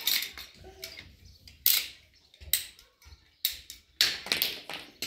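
Hand-squeezed ratcheting pipe cutter clicking and snapping as its blade is worked through a plastic water pipe: a series of sharp, irregular clicks.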